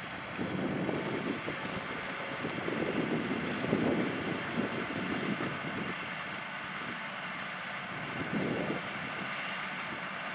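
Farm tractor engine running steadily, with wind on the microphone swelling in irregular gusts.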